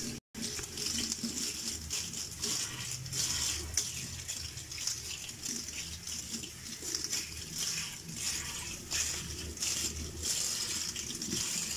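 Kitchen tap running steadily into a stainless-steel sink, the stream splashing over a hand rinsing under it and draining down the plughole. It cuts out for a moment just after the start.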